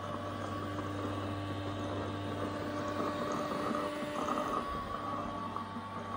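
An Ecovacs Deebot robot vacuum-mop's base station running, a steady mechanical whir of motor and pump with several hum tones. The sound shifts about four seconds in as some of the tones drop out.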